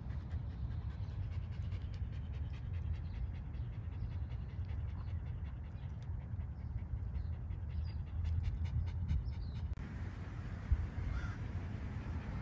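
Miniature Schnauzer panting quickly and evenly, over a steady low rumble.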